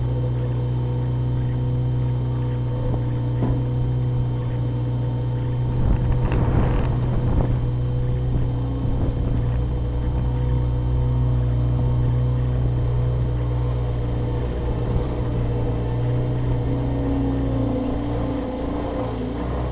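Bobcat 642 skid-steer loader's engine running steadily, with a short louder, noisier stretch about six seconds in.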